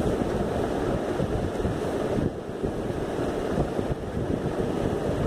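Steady low rushing noise with no distinct events, heaviest in the low end.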